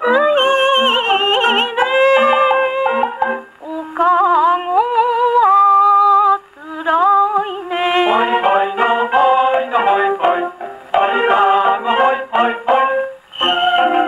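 An old 78 rpm shellac record of a Japanese geisha song playing on an acoustic Victor Victrola gramophone: a woman sings in wavering, sliding phrases over plucked shamisen notes. The sound is thin, with no bass and little treble.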